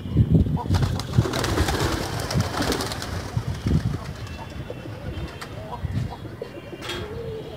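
Domestic pigeons cooing in low, repeated calls, with a stretch of rustling noise from about one to three seconds in.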